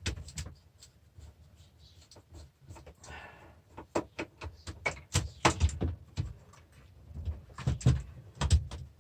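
Irregular metallic clicks, knocks and rattles of tools and parts being handled inside an old DVD player's steel casing while a transformer is worked loose. There is a short scrape about three seconds in, and the knocks come thicker and louder in the second half.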